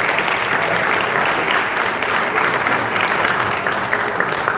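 Audience applauding: many people clapping in a dense, steady patter.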